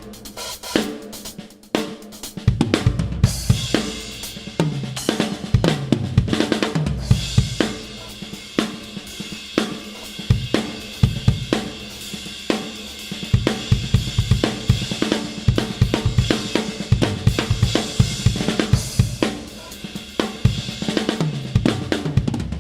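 A drum kit played through beats and fills, with snare, bass drum and toms under a set of Arborea Ghost cymbals crashing and ringing out.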